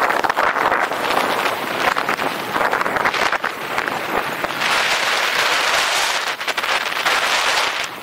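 Skis sliding and scraping over packed snow on a downhill run: a continuous crackly hiss that swells and fades with the turns, with wind buffeting the microphone.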